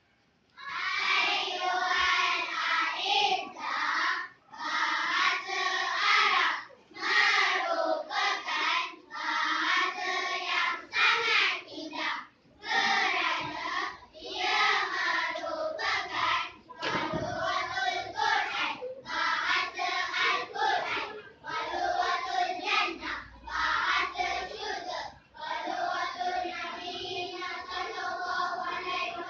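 A group of young children singing together as a choir, phrase after phrase with short breaks between, starting about half a second in.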